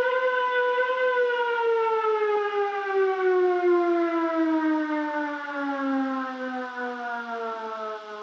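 Outdoor warning siren winding down. Its wail holds steady for about a second, then slides slowly and evenly down in pitch while fading.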